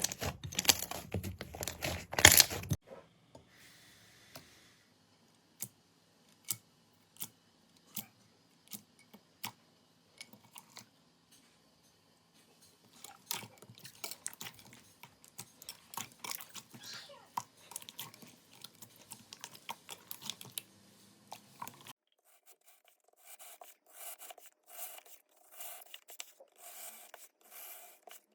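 Slime being squeezed and poked, making crackling and clicking sounds. It starts with dense crackling that stops about three seconds in, then single clicks come about once a second, then the crackling grows dense again. Near the end come soft, regular squishes about twice a second.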